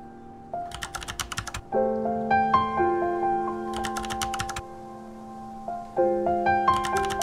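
Background music: soft, sustained piano-like keyboard chords, with short bursts of rapid clicking percussion about every three seconds.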